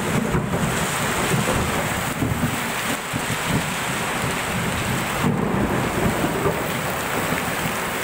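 Heavy rain pouring down steadily, a dense unbroken hiss with a churning low rumble underneath.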